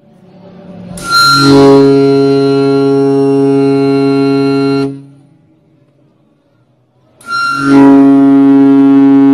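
A ship's-horn-style air horn, blown from an air tank filled by hand pumps, sounds two long blasts. Each is a deep, steady tone with many overtones that opens with a brief hiss and squeal. The first lasts about four seconds and stops, and the second starts about two seconds later.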